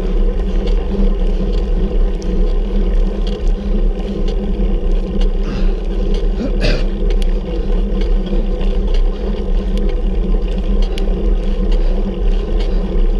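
Steady, loud rumble of wind and riding noise on the microphone of a camera carried on a bicycle during a climb, with scattered faint ticks and one sharper click near the middle.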